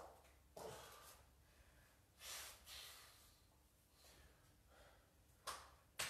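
A kettlebell lifter's hard breathing during a set of double half-snatches: short, sharp puffs of breath in pairs, a pair about every three seconds, paced to the reps.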